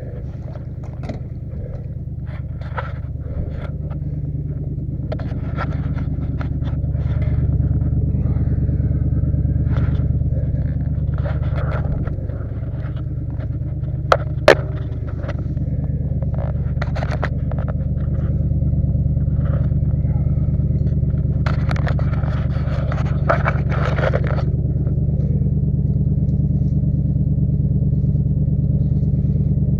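Pickup truck engine running steadily under load while pulling, getting louder over the first several seconds and holding there, with scattered scrapes and clicks and one sharp snap about halfway through.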